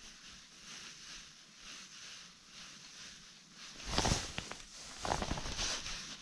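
Two bursts of splashing, about four and five seconds in, after a few seconds of faint hiss: a fish, likely a pike, striking at a surface popper lure and missing it.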